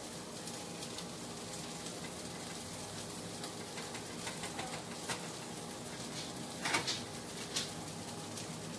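Faint steady kitchen hiss with a low hum, broken by a few sharp clicks and taps of utensils or dishes, the loudest about seven seconds in.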